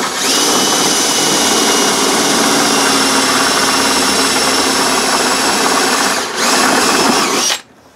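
Cordless drill running at high speed, boring out a hole in a 3D-printed plastic tray to enlarge it, with a steady high motor whine. It eases off briefly about six seconds in, runs again, and stops abruptly near the end.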